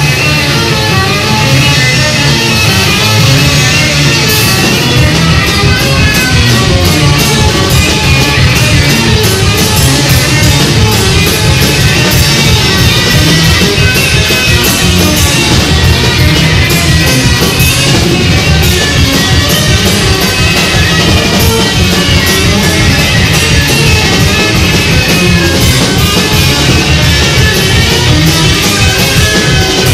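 Live rock band playing loud, guitar over a drum kit, with a steady fast beat.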